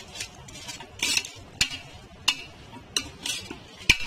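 A perforated metal ladle stirring raw rice into masala-coated chicken in a pressure cooker pot: gritty scraping swishes through the rice, with four sharp clinks of metal on the pot's side.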